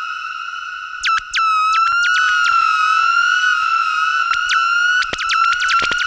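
Verbos modular synthesizer patch imitating birdsong: the Complex Oscillator holds a steady, slightly wavering whistle-like tone, and about a second in quick, randomly timed pitch-swept chirps join it, several a second, fed through a multi-delay.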